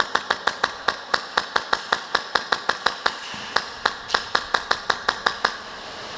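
Airsoft gun fired rapidly on semi-automatic: about thirty sharp, slightly ringing shots at about six a second, with a brief pause just past three seconds in.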